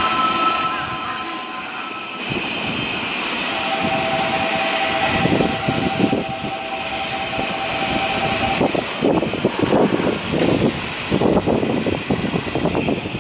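Kobe Municipal Subway train running, a steady rushing noise with a steady whine from about four to nine seconds in, then an uneven low rumble.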